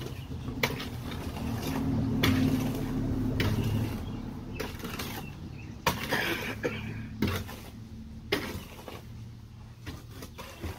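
An engine running low, growing louder about two seconds in and easing off after about four, with sharp knocks and clicks scattered throughout.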